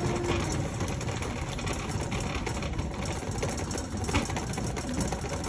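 Shopping cart being pushed across a hard store floor, its wheels and frame rattling steadily.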